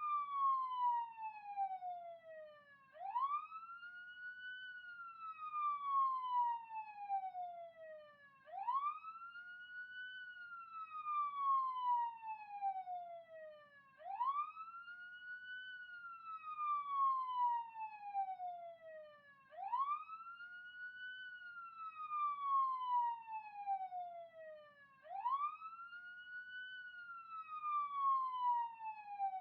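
Police siren in wail mode: its pitch sweeps up quickly and then falls slowly, over and over, about once every five and a half seconds.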